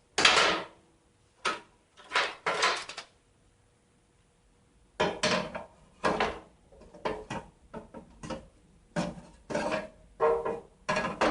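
Irregular metallic clatters and knocks of a hard drive being fitted back into a computer case's drive bay, with a pause of about two seconds in the middle.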